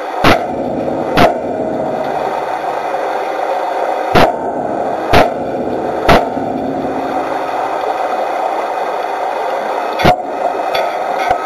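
Sledgehammer blows on a steel plate against a ship's hull, heard underwater over a steady background rush. There are two strikes about a second apart, then three more about a second apart a few seconds later, and one more near the end.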